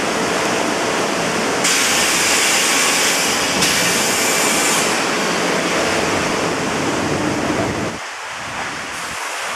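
Rushing, churning water of a river rapids ride's channel, heard from aboard the round raft as a steady noise that grows louder and hissier from about two to five seconds in. The low rumble drops away near the end.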